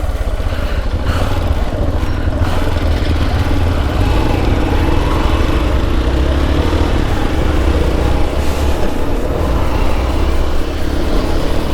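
Motorcycle engine running as the bike rides off, a steady drone whose pitch climbs a little through the middle.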